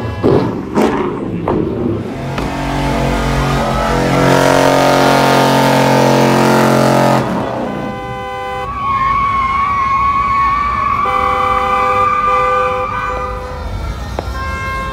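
A car engine held at high revs with loud tyre noise, as in a burnout. It cuts off suddenly about seven seconds in, and car horns then honk in long steady blasts at several pitches.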